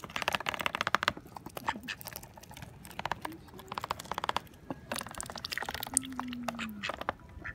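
Domestic duck feeding from a tub of chopped vegetables, its bill dabbling and snapping in several bursts of very rapid clicking.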